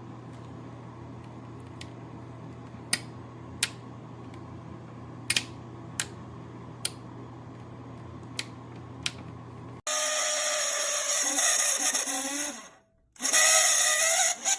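Hair dryer running with a steady motor hum and airflow, with a few sharp ticks from handling; it cuts off suddenly about ten seconds in. A louder, hissier sound with shifting pitched tones follows, broken by a brief gap.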